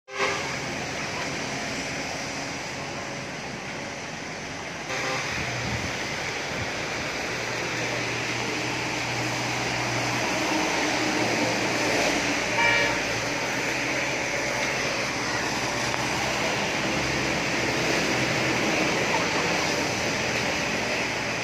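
Steady rain falling, a continuous even hiss that grows a little louder about five seconds in. A low hum runs underneath for a few seconds, and a short pitched tone sounds briefly a little past halfway.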